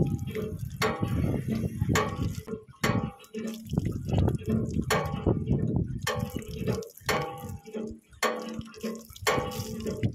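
Cold groundwater pouring from a large tubewell tap and splashing, with many irregular sharp splashes as hands scoop and drink it.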